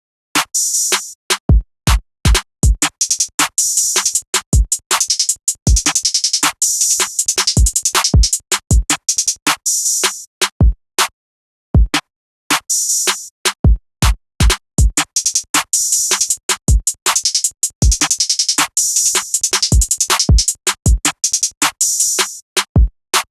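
Trap drum pattern playing from a Maschine MK2 drum machine: punchy kick and deep 808 hits with short silent gaps between them, and fast hi-hat rolls coming in bursts.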